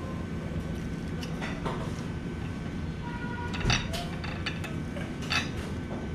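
Knife and fork clinking and scraping against a ceramic plate while cutting food, with a few sharp clinks, the loudest one a little past halfway and another near the end. A steady low rumble runs underneath.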